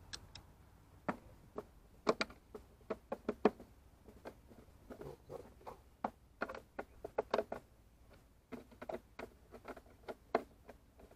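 Irregular clicks and light knocks of hard plastic as the air filter housing cover and intake pipe of an Opel Astra H 1.9 CDTI are handled and seated by hand, in scattered clusters of taps.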